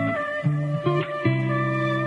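Background music: plucked guitar playing a repeating bass figure with held notes.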